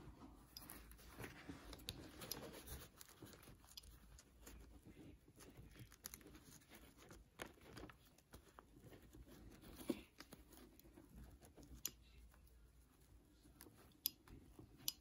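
Faint rustling of a satin petal being pressed and pinched under a metal ball tool on a padded cloth, with several small clicks in the second half.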